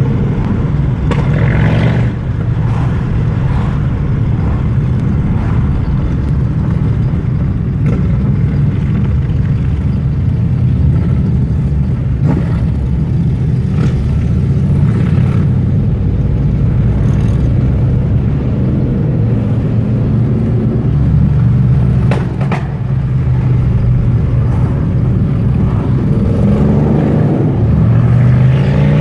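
A large pack of cruiser motorcycles riding in convoy, their engines running with a steady low rumble, the revs rising near the end.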